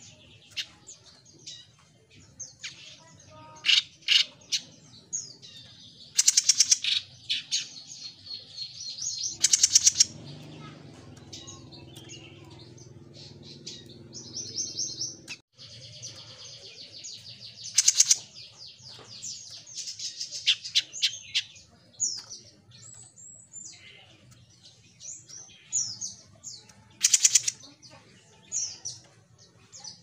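Caged small brown songbird ('jenggot mini') singing in rapid high chirps, trills and sweeping whistles, broken by a few very loud sharp bursts of notes.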